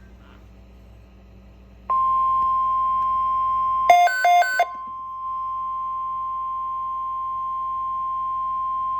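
NOAA Weather Radio 1050 Hz warning alarm tone. After about two seconds of low hum it starts abruptly and holds one steady pitch, signalling that a severe weather alert is about to be read. About four seconds in, a short run of three quick beeps that step in pitch cuts in briefly over it.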